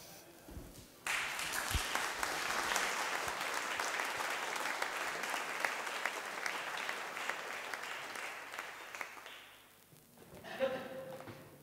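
Audience applauding, starting about a second in and fading out after about eight seconds. A brief voice follows near the end.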